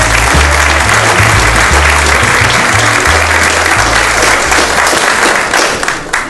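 Audience applauding over background music with a bass line; the music stops near the end and the applause dies down just after.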